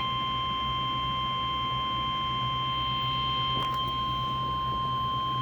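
NOAA Weather Radio 1050 Hz warning alarm tone: one steady, unbroken high beep, the attention signal that comes before an Emergency Alert System weather message. A low hum runs under it, with a faint click about three and a half seconds in.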